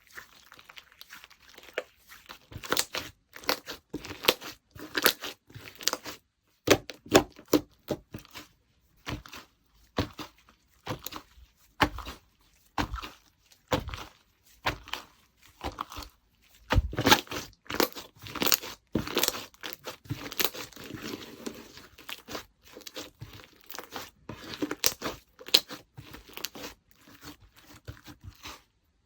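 Slime being squished, stretched and poked by hand, giving irregular sticky clicks and crackling pops, bunched into quick runs in places.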